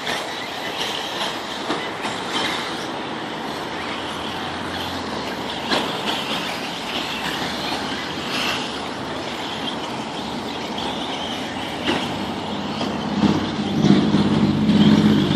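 1/8-scale electric RC buggies racing on a dirt track: a continuous high motor whine and tyre noise, with sharp knocks about 6 and 12 seconds in. Near the end a louder, steady low droning tone comes in.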